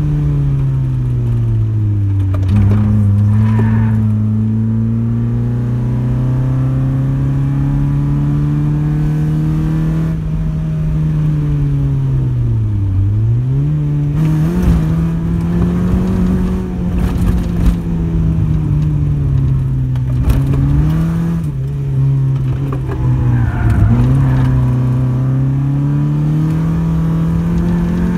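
Second-generation Honda CRX's engine heard from inside the cabin, driven hard on a twisting road. Its pitch climbs steadily under throttle, then drops and comes back several times as the driver lifts off and shifts: once about two seconds in, sharply about thirteen seconds in, and a few more times in the second half.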